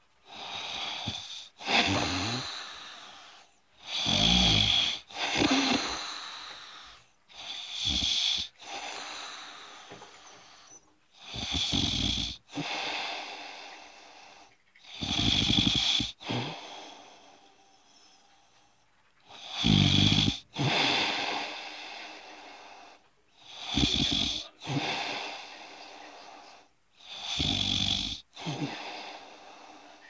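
A sleeper snoring in a steady rhythm, one snore about every three to four seconds, with quieter breathing between the snores.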